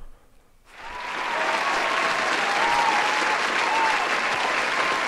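Canned studio-audience applause with some cheering. It swells in about a second in after a brief silence, then holds steady.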